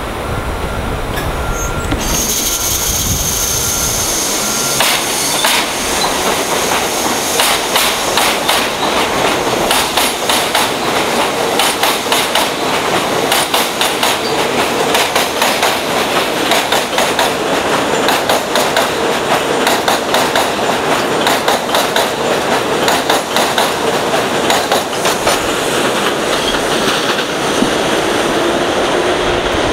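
New York City Subway R62A train pulling out of the station and running past, its wheels clattering over the rail joints in a rapid run of clicks.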